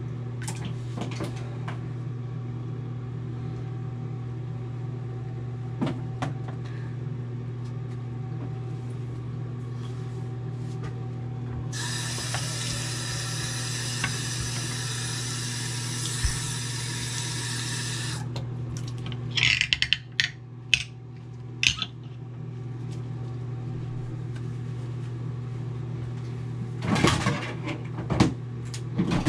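Bathroom faucet running into the sink basin for about six seconds, midway through, over a steady low hum. Several sharp knocks and clatters follow, in two clusters near the end.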